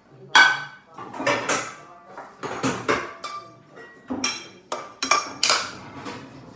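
Metal pots and pans clanking and knocking together as a saucepan is taken out: a string of about ten separate knocks, some with a brief metallic ring.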